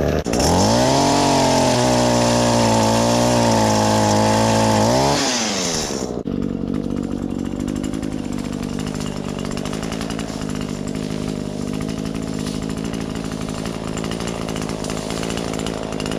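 Chainsaw engine revved high and held for about five seconds, then dropping back to a steady idle.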